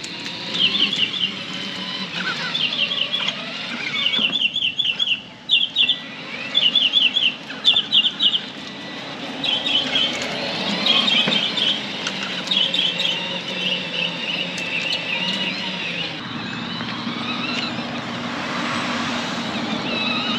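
Small birds chirping: short runs of three to five quick high chirps about once a second, turning to more varied chirping about halfway through. Under them runs the steady sound of a 24V electric ride-on UTV being driven.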